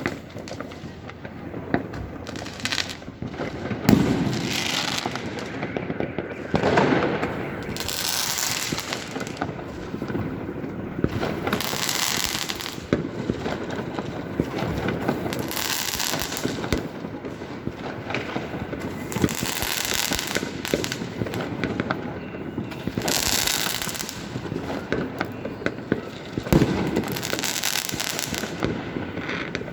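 Many fireworks and firecrackers going off at once: a continuous crackle of small bangs with repeated hissing, crackling bursts every few seconds. The loudest bangs come about four seconds in and again near the end.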